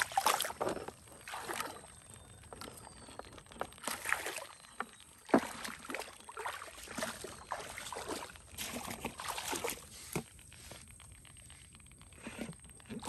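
Shallow muddy water splashing and sloshing in irregular bursts as a mud crab is handled and tied in it, with one sharp click about five seconds in.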